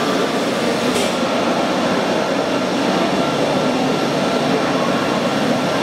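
Longdiao CNC router machining center's spindle running and milling a sheet, a loud steady machine noise with a faint high whine. A brief click about a second in.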